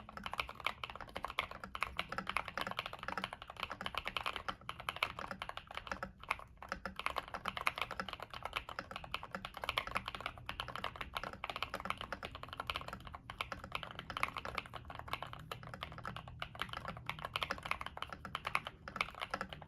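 Continuous fast typing on a Kbd67 Lite mechanical keyboard with stock Emogogo Cream linear switches, an FR4 plate, Cherry profile keycaps, tape mod and case foam: a dense run of keystroke clacks with brief pauses.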